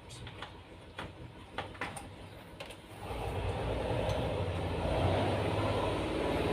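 A few light clicks and knocks, then about three seconds in a washing machine motor starts and runs with a steady hum, switched on to test whether the tub will spin.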